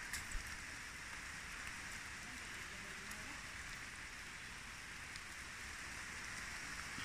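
Steady hiss of rain falling, with a couple of small knocks just after the start.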